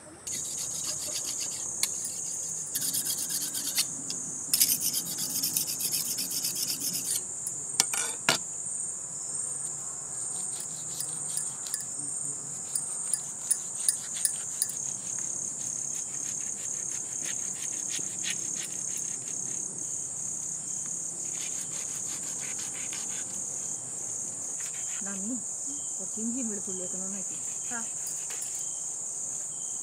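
Crickets and other insects chirping in a steady, high-pitched evening chorus. Over it come rasping scrapes and cuts of a knife working a large rohu fish on a wooden board, thickest in the first half.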